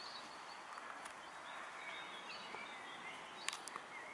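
Outdoor ambience: a steady hiss with small birds chirping in the background, and two sharp clicks about three and a half seconds in.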